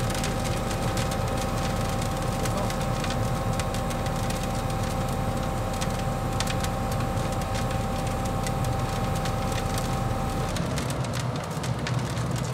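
Excavator-carried stone-column vibroflot running: a steady low engine drone with a constant whine and fast, irregular clicking and rattling. About ten seconds in, the whine and the deepest hum cut out.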